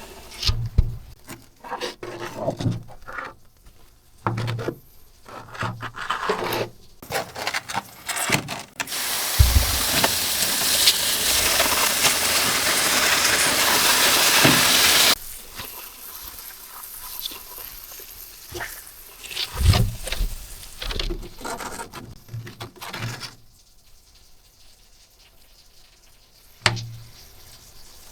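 Plastic keyboard parts being handled and scrubbed during cleaning: scattered clicks, knocks and rubbing. About nine seconds in, a loud, steady hiss begins and cuts off suddenly some six seconds later.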